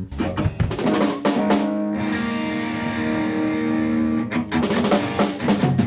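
Rock band warming up before a song: drum kit hits, then a guitar chord held and left ringing for about two seconds, then more drum hits.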